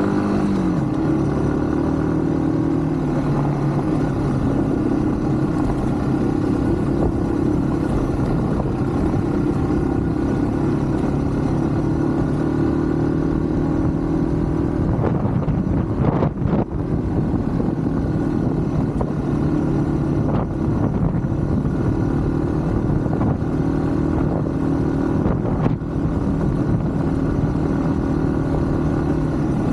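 Yamaha WR155's single-cylinder engine running steadily under way, the revs shifting now and then, with a brief drop in revs just past halfway and another near the end, over steady road and wind noise.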